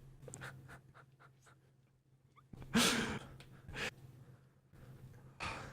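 A man's audible breaths into a close microphone: a loud exhale like a sigh about three seconds in, a shorter breath just before four seconds and another near the end, over a steady low hum.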